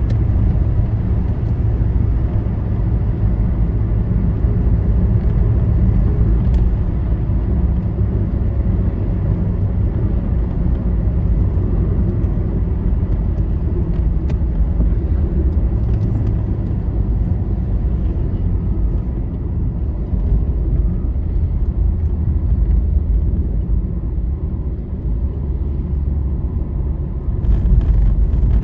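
Steady low rumble of engine and tyres from a vehicle travelling on a highway, heard from aboard the moving vehicle; it eases slightly, then swells again near the end.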